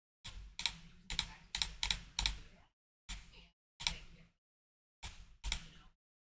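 Computer keyboard keys tapped in short irregular runs: a quick run of six keystrokes, then two, then two more near the end, with dead silence between.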